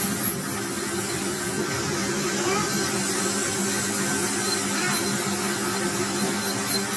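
Metal lathe running while its cutting tool faces a large spinning metal disc: a steady machine hum with a continuous hiss of the cut.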